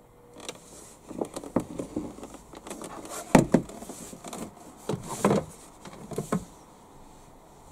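Irregular clicks and knocks of tools and parts being handled during work on a car door, the loudest pair about three and a half seconds in.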